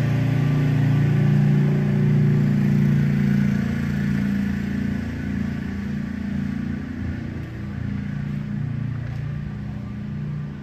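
A motor engine running with a steady low note that grows gradually fainter in the second half, as if moving away.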